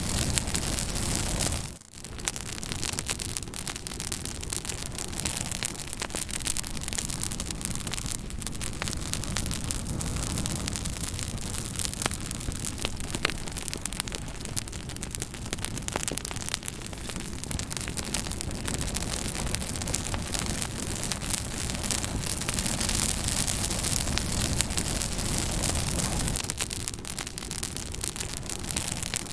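Fire crackling: a continuous hiss with a dense scatter of sharp pops and snaps. The sound drops out briefly about two seconds in, then carries on.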